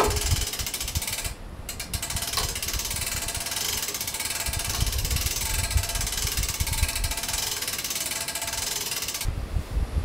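Winch of a material lift being cranked to raise a pallet of stones, a fast, even ratchet-like clicking that starts about a second in and stops shortly before the end. Wind rumbles on the microphone underneath.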